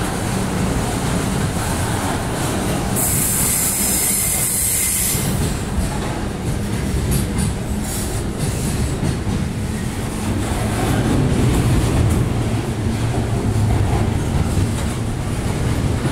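Wagons of a container freight train rolling past close by, with a loud, steady rumble of steel wheels on rail. About three seconds in there is a brief high-pitched hiss lasting about two seconds.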